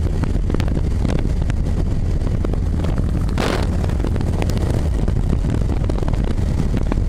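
Motorcycle engine running steadily at highway speed, with wind rushing over the bike-mounted microphone and a brief louder rush of noise about three and a half seconds in.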